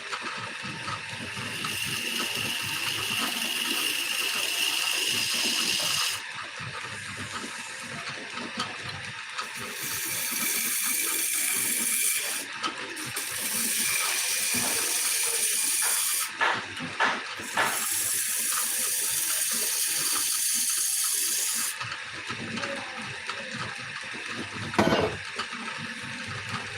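A wood lathe running, with a turning tool cutting the spinning wood in four stretches of a few seconds each, each one a loud hiss of shavings. Between the cuts the lathe runs more quietly. A couple of sharp clicks come after the third cut, and a single knock comes near the end.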